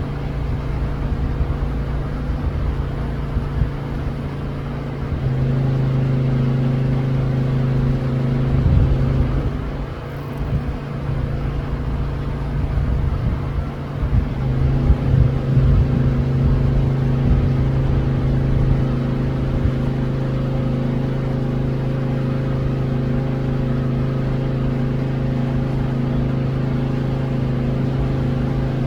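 A motor vehicle's engine idling with a steady low hum. The hum wavers and lumps between about 8 and 15 seconds in, then settles again.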